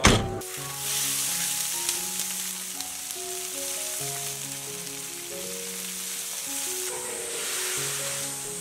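Sauce and vegetables sizzling in a hot wok, a steady hiss that starts about a second in and swells again near the end, over soft background music. A sharp thump sounds at the very start.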